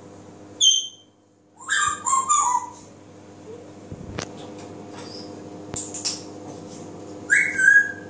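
African grey parrot whistling: a short high whistle just after the start, a quick run of chattering pitched notes about two seconds in, and another whistled call near the end. A single sharp click comes about halfway.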